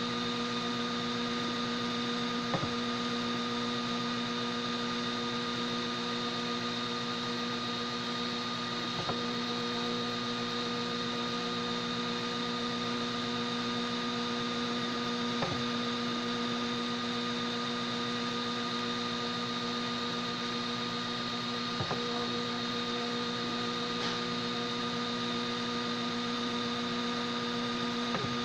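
Homemade 3D printer running mid-print: a steady hum made of several constant tones over a light hiss, with a brief blip about every six and a half seconds where the tones waver.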